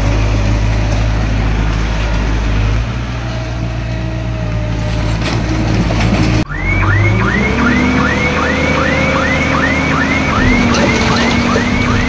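Heavy diesel engine of construction machinery running steadily. After an abrupt break about halfway through, the engine note rises and a high chirping squeak repeats about two and a half times a second.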